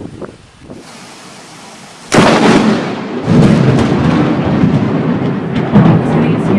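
Close thunderclap from a nearby lightning strike: a sudden sharp crack about two seconds in, then a loud rolling rumble that surges again about a second later and keeps going.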